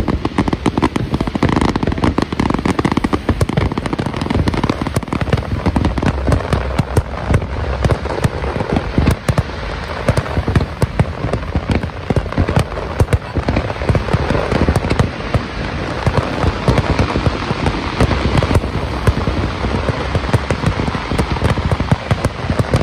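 Aerial fireworks display at full barrage: a dense, unbroken run of bangs and crackling pops.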